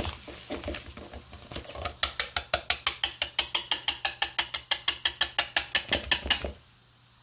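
Wire whisk beating thick cookie dough in a stainless steel mixing bowl, the wires clacking against the bowl. Uneven strokes at first, then a fast, even rhythm of about eight clacks a second that stops shortly before the end. The dough is getting too stiff for the whisk as the flour is worked in.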